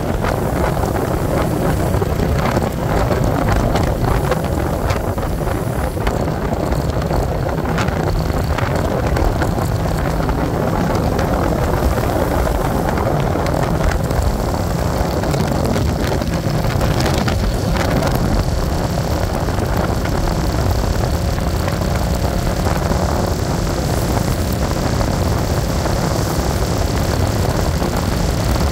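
Steady noise of a moving vehicle, with wind buffeting the microphone.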